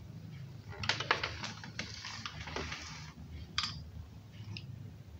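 A kitten's claws scrabbling and clicking on a hard tiled floor as it plays: a quick run of clicks and scratches for about two seconds, then two single clicks.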